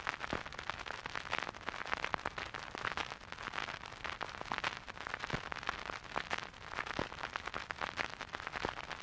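Vinyl record surface noise: a stylus riding the groove with no music, giving a steady hiss dense with irregular crackles and pops.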